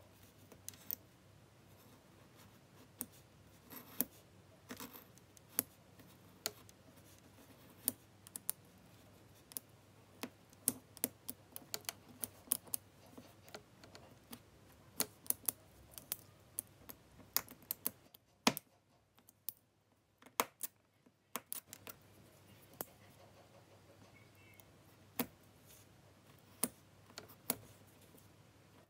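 Snap-off utility knife trimming a rubber eraser stamp block: an irregular run of sharp little clicks and scrapes as the blade slices through the eraser, with a short quieter pause about two-thirds of the way through.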